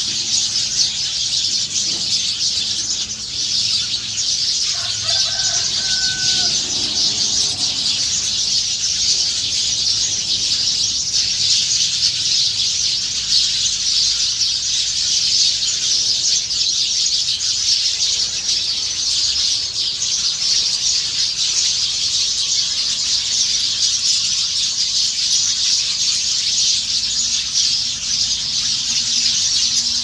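A large flock of small birds chattering and squealing together, a dense, steady, high-pitched chorus, with one short lower-pitched call about five seconds in.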